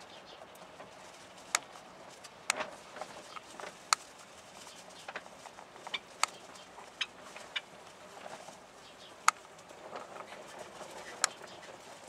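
Caged cockatiels making soft chirps, with about six sharp clicks and taps scattered irregularly through it.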